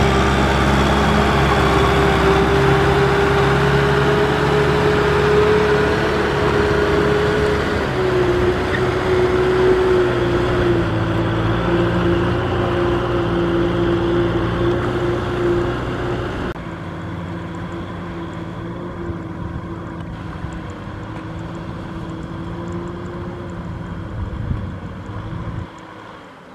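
Kubota M6040SU tractor's diesel engine running steadily under load while it tows a loaded trailer. It fades as the tractor moves away, with a sudden drop in loudness about two-thirds of the way through.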